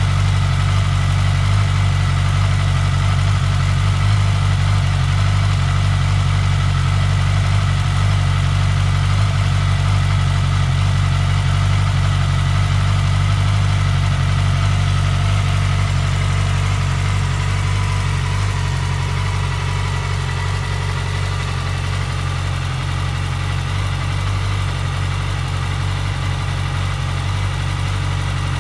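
A 2008 Yamaha R6's 600 cc inline-four engine idling steadily, a little quieter from about two-thirds of the way through.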